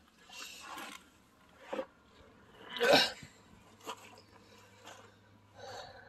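Footsteps and scuffing in wet mud as a person climbs out of a pickup truck, a few scattered knocks and swishes, with one louder short burst of noise about three seconds in.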